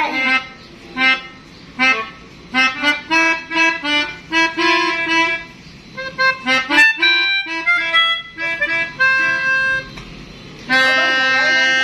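Pianika (melodica) playing short phrases of notes that imitate a 'telolet basuri' bus horn tune, with pauses between the phrases and a long held chord near the end.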